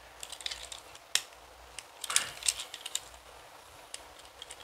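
Plastic parts of a Transformers Nightbird action figure clicking and tapping as it is handled and transformed. Scattered light clicks, with a sharper snap about a second in and a quick cluster of clicks around two seconds in.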